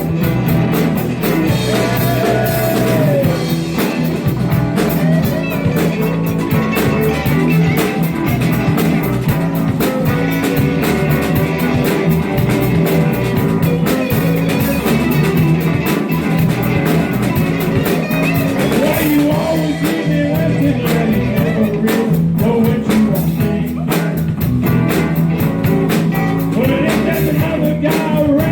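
Live blues-rock band playing, with electric guitar over bass and drum kit; the recogniser catches no sung words in this stretch.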